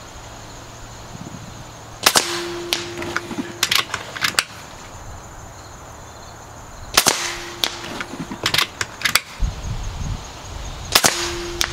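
Three shots from a .25 calibre PCP air rifle firing slugs, the first two about five seconds apart and the third about four seconds later, each a sharp crack. Each shot is followed by a short steady tone lasting about a second and a few lighter clicks.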